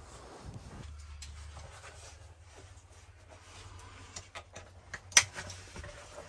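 Clicks and rubbing as a man handles and fastens his gear in a small trailer, with one sharp, loud click about five seconds in, over a low steady hum.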